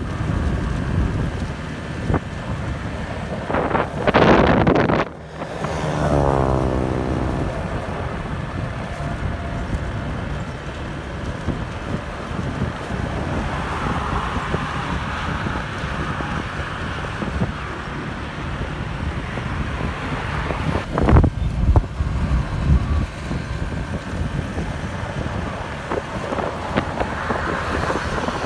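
Steady road and engine rumble with wind buffeting the microphone, recorded from a moving vehicle. About four seconds in there is a brief loud rush, followed by an engine note sliding down in pitch, and another short loud burst near the end.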